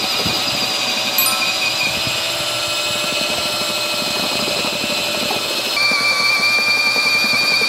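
HPT cordless mixer drill in first gear, its paddle churning stiff mortar in a large plastic tub: a steady motor whine under heavy load with no slowing. The whine shifts and grows a little louder about six seconds in.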